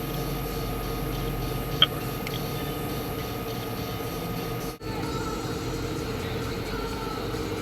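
Steady engine and road noise inside a moving police patrol car, with one short sharp click about two seconds in.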